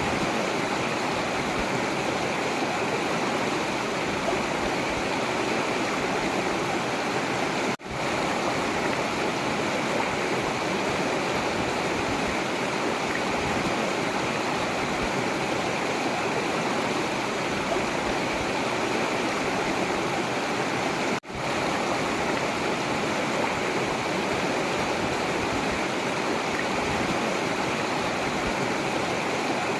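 River water flowing in a steady, even rush. The sound drops out for a split second twice: about eight seconds in, and again about twenty-one seconds in.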